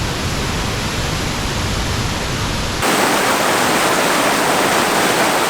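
Rushing water, a steady loud rush that shifts abruptly about halfway through to a louder, brighter, hissier rush with less rumble.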